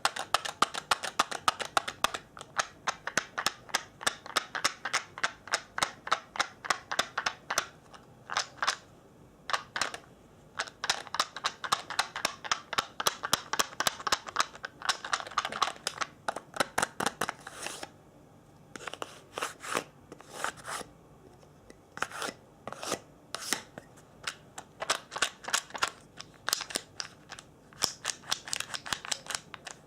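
Close-up ASMR trigger sounds: runs of short, crisp clicks or snips, several a second, broken by a few brief pauses.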